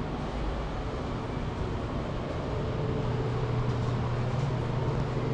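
Steady ventilation hum, from a fan or air-conditioning unit, that comes in about halfway through over a constant rushing noise.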